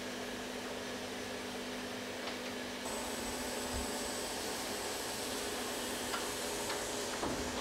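Steady hum and airy hiss of rotational moulding machinery running, with faint steady tones and a couple of light knocks near the end.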